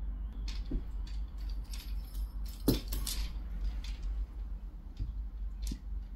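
Wooden beads of a toy abacus clacking against one another and the frame as kittens push through it. The clicks come irregularly, with the sharpest knock a little under three seconds in, over a steady low hum.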